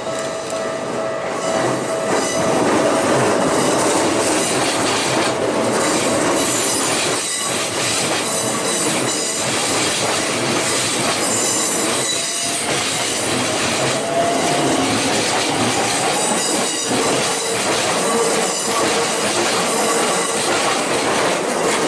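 Keikyu Line train passing over a level crossing, its wheels clattering over rail joints and squealing, while the crossing alarm rings steadily. About halfway through, a whine rises in pitch.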